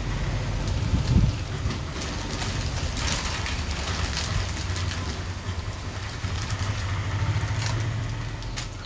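Foil chip packets crinkling as they are handled and opened, over a low steady rumble that swells about a second in and again near the end.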